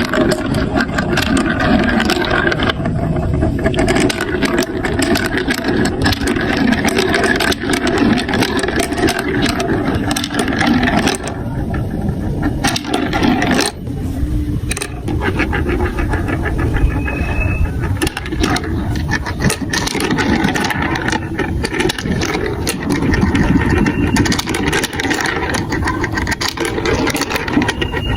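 Many marbles rolling and clattering down a plastic building-block marble run: a continuous rolling rumble thick with small clicks as the marbles knock against the track and each other.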